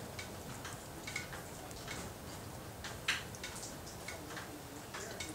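Rainwater dripping onto a hard surface: light, irregular ticks about three a second, with one louder tap about three seconds in.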